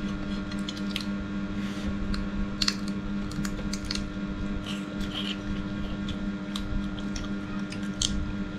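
Metal spoons clicking and scraping against ceramic plates and a soup bowl during a meal, in irregular taps a second or so apart, over a steady low hum.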